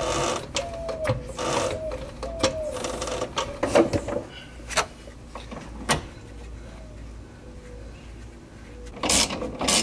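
Scattered metal clicks and knocks as the rear strut's lower eye is worked onto its mounting bolt on a BMW E36, then about a second from the end a hand ratchet starts clicking in quick bursts, tightening the strut bolt into the freshly helicoiled thread.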